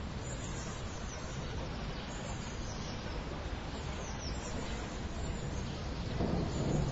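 City yard ambience before rain: a steady background wash of distant city noise with a few faint high bird chirps. A low rumble swells about six seconds in.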